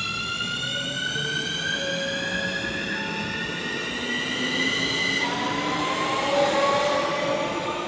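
Keikyu electric train accelerating, its traction motors and inverter giving a whine that rises steadily in pitch. About five seconds in, the tone changes abruptly and a new, lower whine starts rising again.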